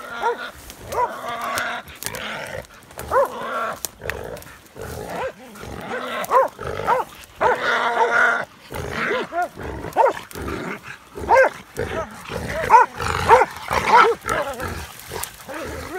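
Hunting dogs barking over and over at a wild boar hog they have caught or bayed, short sharp barks coming in clusters.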